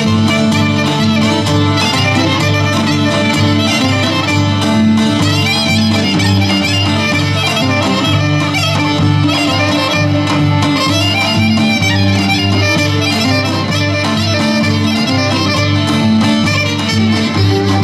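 Traditional Macedonian Greek folk dance music: a lively melody over a steady, repeating rhythm, played loud and without a break through the stage loudspeakers.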